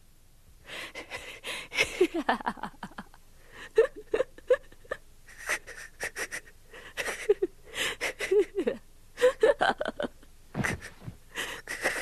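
A teenage boy sobbing in repeated bouts of gasping, catching breaths broken by short falling whimpers, starting about a second in.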